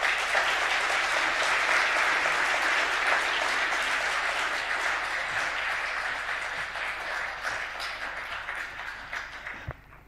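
Audience applauding: a full, steady round of clapping that thins out and dies away near the end.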